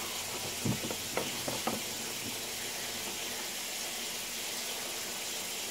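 Steady hiss of room tone, with a few faint clicks or knocks in the first two seconds.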